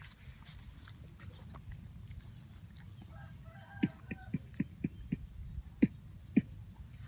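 A chicken clucking: a quick run of about eight short, sharp clucks beginning about halfway through, with a steady high-pitched whine behind.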